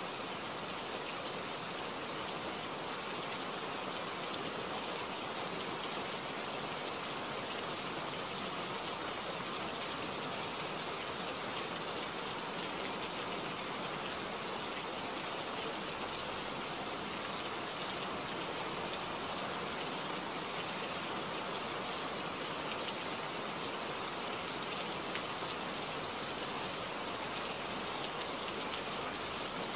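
Steady rain falling, an even hiss of many drops that holds without a break.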